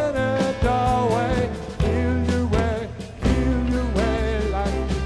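Live rock band playing: electric guitar and bass over drums, with a melodic line that bends in pitch.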